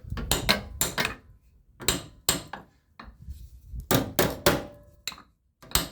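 About a dozen sharp metal knocks and clanks at uneven intervals, some ringing briefly: tools striking and handling steel during car sill repair work.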